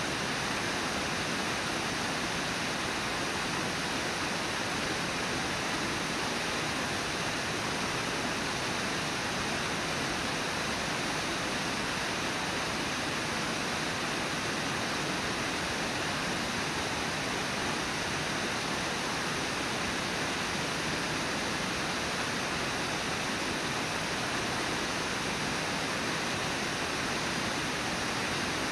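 Steady rush of water pouring over Brooks Falls, an even hiss that does not change.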